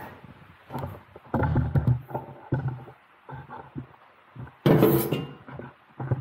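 Sheet metal duct parts being handled and pressed into shape by hand: irregular dull thumps and knocks, with one louder, sharper knock about five seconds in.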